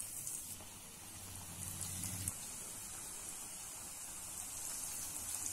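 Breadcrumb-coated chicken donuts frying in a pan of hot oil as they are lowered in one by one: a steady sizzling hiss with faint pops.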